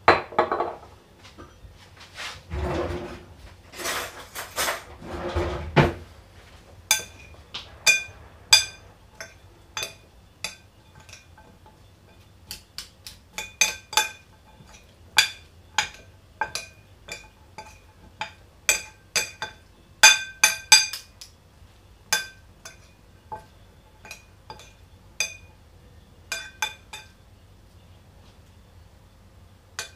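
Metal spoons clinking against a ceramic bowl as a salad is tossed: irregular, short ringing clinks from about seven seconds in. Before that, a knock as a glass bottle is set down on the stone counter, then a few seconds of rustling.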